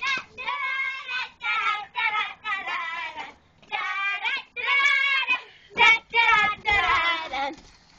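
Young girls singing a tune in a run of short, high phrases, with no accompaniment.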